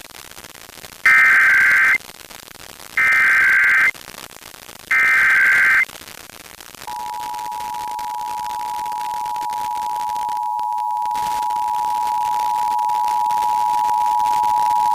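Emergency Alert System signal on a radio broadcast: three short bursts of the SAME digital header, each just under a second, then the steady two-tone attention signal starting about seven seconds in and growing slowly louder. It opens a required statewide monthly EAS test.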